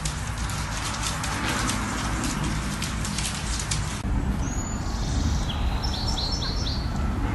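A steady rushing noise with faint crackles, then, after an abrupt change about four seconds in, a low rumble with a quick run of four or five short, high chirps.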